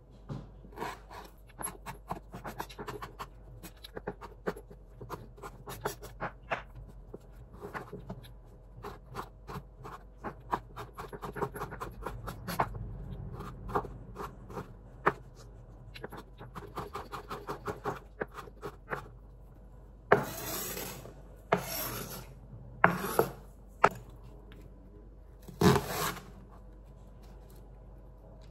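Hand food preparation on a wooden board: a long run of quick, irregular rasping and rubbing strokes, then four louder, longer hissing strokes in the last third.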